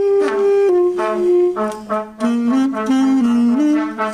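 Alto saxophone playing a melody: a run of short notes and a few held ones, stepping up and down in pitch.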